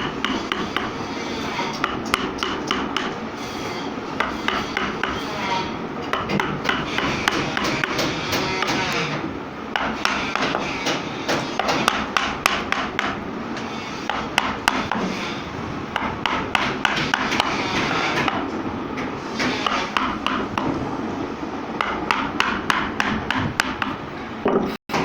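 Rapid, irregular tapping and knocking, several strikes a second, over a rough scraping noise, with a few short pauses.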